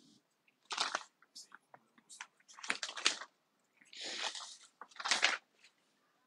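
Rustling, crackling handling noise from a phone's microphone being rubbed and shifted in the hand, in four short bursts with small clicks between.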